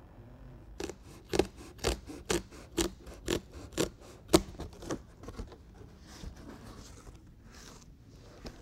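Scissors snipping through a truck's fabric headliner, about two cuts a second, stopping about five seconds in.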